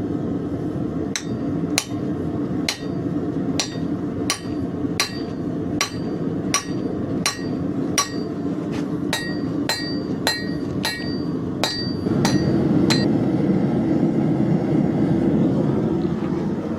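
Hand hammer striking a hot piece of car leaf spring steel on an anvil, about twenty ringing blows at one to two a second, isolating material for a knife handle. The blows stop near the end, leaving a steady low rushing noise that grows louder.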